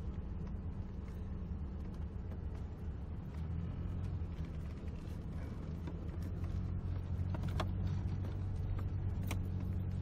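Vehicle engine running steadily at low speed, heard from inside the cab, as it drives slowly across a grassy field. The hum grows a little louder about halfway through, and a couple of light knocks come near the end.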